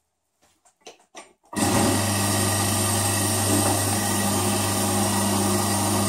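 Electric vacuum pump of a small vacuum chamber switched on about a second and a half in, after a few faint clicks, then running steadily with a low hum.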